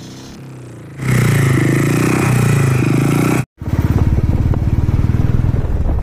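Royal Enfield Classic 350's single-cylinder engine through an aftermarket Wild Boar silencer, with a deep, full exhaust note. It idles, then from about a second in it is revved, its pitch rising and falling. After a sudden break just past the halfway point it runs faster, with a rapid even beat of exhaust pulses.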